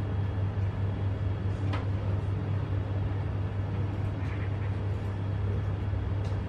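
Steady low room hum and rumble with a faint click about two seconds in.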